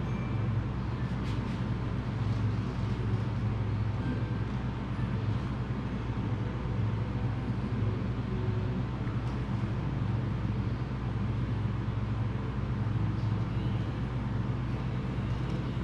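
A steady low mechanical hum, with a few faint light clicks.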